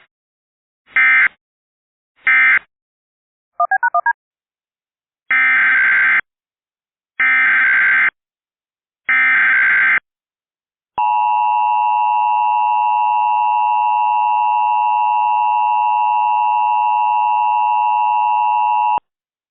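Emergency Alert System tones. First three short bursts of SAME data screech, the end-of-message code of the first Blue Alert, then a brief chirping blip. Then come three longer SAME header bursts of about a second each, and the EAS two-tone attention signal held steadily for about eight seconds, announcing the next alert.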